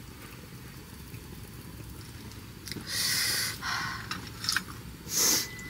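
Eating noises during a spicy meal: two short noisy bursts, the louder one near the end, and a few light clicks over a steady low background noise.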